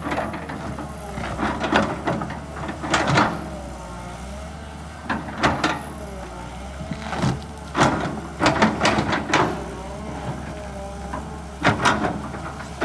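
Kobelco SK200 hydraulic excavator running under load, a steady engine note with a hydraulic whine wavering up and down, broken by repeated loud cracks and knocks as it works large tree stumps.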